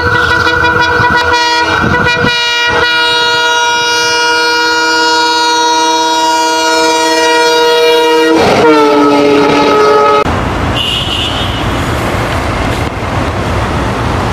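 Bangladesh Railway diesel locomotive's horn sounding one long, loud blast as the train approaches and passes. The horn's pitch drops about eight and a half seconds in as the locomotive goes by, and the blast stops about ten seconds in. A steady rumble follows.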